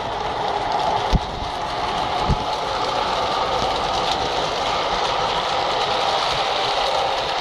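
MTH O-gauge model subway train running steadily on the track, its electric running sound slowly growing louder, with two sharp clicks in the first few seconds.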